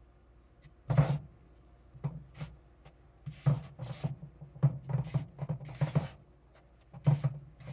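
Kitchen handling noises while chicken party wings are being coated in flour and set on a plate: a run of irregular knocks, taps and rustles starting about a second in.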